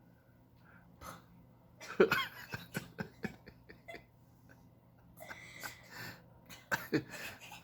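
An elderly man snoring in his sleep with loud, irregular snorts and sputtering breaths. The loudest snort comes about two seconds in, and another cluster comes near the end.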